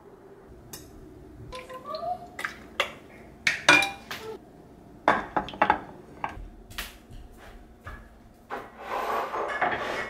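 Ceramic dishes and a clay meal tray clinking and knocking as food is placed in them and containers are set down, a run of sharp clinks with a short ring. Near the end comes a denser scraping and rustling as trays are moved.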